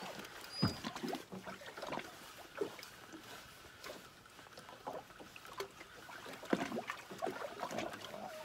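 Small waves slapping and lapping against the hull of a small drifting boat, with irregular knocks and clicks, the loudest about half a second in and again near the end.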